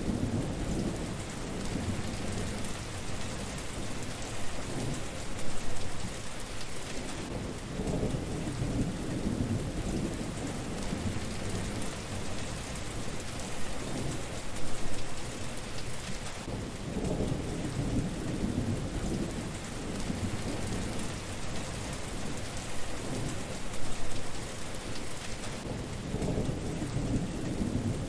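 Steady rain falling, with low rumbles of thunder that swell and fade several times, the strongest about five, fourteen and twenty-four seconds in.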